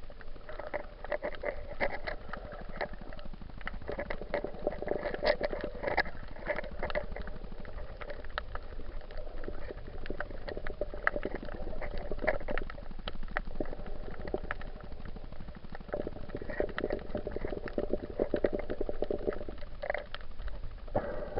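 Underwater bubbling and water sloshing picked up by a cheap waterproof action camera, muffled and crackly. It comes in bursts of crackling every few seconds with quieter stretches between.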